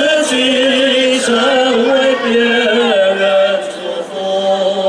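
Choir singing a slow Christian song with musical accompaniment; the voices waver through a phrase, then hold one long note for the last couple of seconds.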